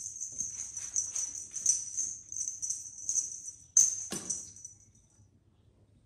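Small bells jingling in quick, repeated shakes, stopping about five seconds in. A brief lower sound cuts in about four seconds in.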